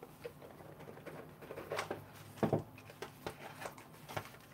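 Quiet handling noise: a few scattered light taps and knocks as boxed knives are moved about on a cloth-covered table, one box being slid into place near the end.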